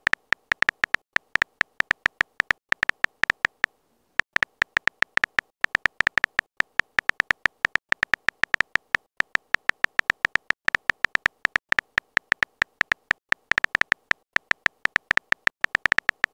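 Keyboard typing sound effect of a texting-story chat app: one short synthetic tick per character typed, coming quickly and unevenly at about four to six a second, with a brief pause about four seconds in.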